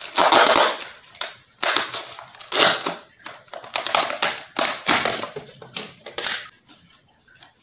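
Shredded paper packing fill rustling and crinkling as hands dig through it and handle a plastic Tupperware box, in irregular bursts that stop about six and a half seconds in.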